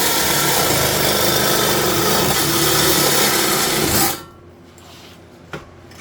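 Cordless Porter-Cable 20 V reciprocating saw with a Lenox Fire and Rescue metal-cutting blade sawing through double-walled steel exhaust pipe, a loud steady buzzing rasp. It stops suddenly about four seconds in as the cut finishes, followed by a single light click.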